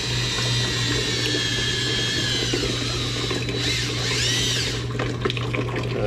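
Cordless drill driving a small transfer pump, its motor whine sagging slightly and then rising and falling again about four seconds in, while water runs from a return hose into a plastic bucket as air is purged from the heating lines.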